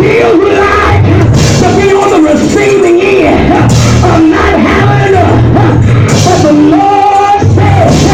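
Loud gospel music from a church band, with singing and shouting voices over a heavy, steady bass.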